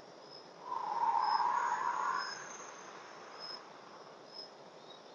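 A slow breath rushing softly for about two seconds, starting about a second in, during a paced deep-breathing exercise. Behind it, a faint high insect chirp repeats about once a second.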